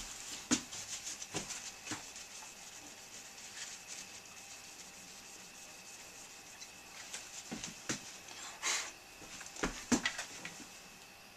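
Fingertip rubbing on a whiteboard to wipe off a marker letter, with scattered light taps and clicks clustered about a second in and again near the end. A faint steady high whine runs underneath.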